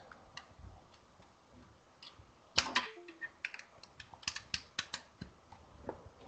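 Faint computer keyboard typing: an irregular run of short key clicks, mostly in the second half.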